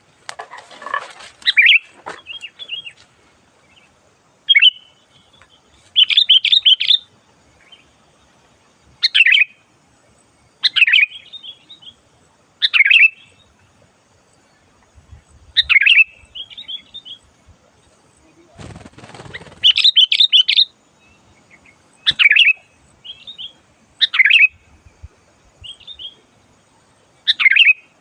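Sooty-headed bulbul singing its loud chattering song: short bubbly phrases every second or two. A brief rustling noise sounds at the start and again about two-thirds of the way through.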